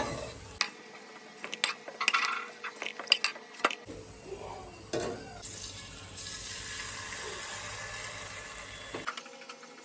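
Metal cooking utensils clinking and scraping against a pot several times, then a steady hiss for a few seconds that stops suddenly.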